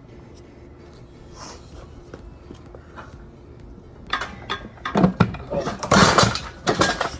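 Metal clanking and knocking, a quick run of sharp strikes about four seconds in, as the transfer case is worked off the transmission.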